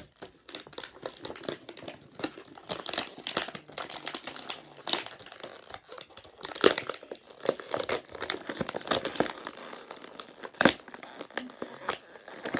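Clear plastic action-figure packaging crinkling and crackling as it is handled, in an irregular run of crackles with a few sharper, louder cracks.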